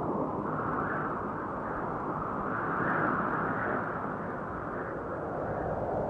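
DJI Phantom 1 quadcopter's motors and propellers heard through the GoPro mounted on it: a steady whirring hiss whose pitch drifts slightly up and down.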